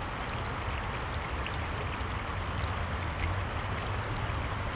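Shallow creek water rushing steadily over rocks in a riffle, with a low rumble underneath.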